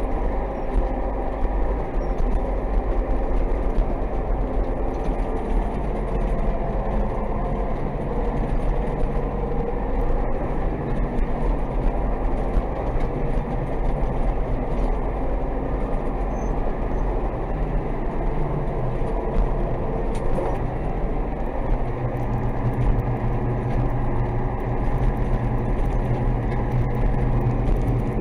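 DT-75 crawler tractor's diesel engine running steadily under way, heard from inside the cab; its note shifts about two-thirds of the way through.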